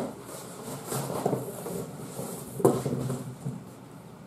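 Cardboard boxes being handled: scraping and rustling as a boxed kitchen utensil set is pulled out of a larger shipping box, with a knock at the start and another about two and a half seconds in.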